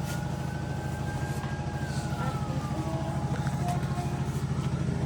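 Steady low mechanical hum with a fast flutter, like a motor running without a break. A faint high tone drifts up and then slowly down over the first few seconds.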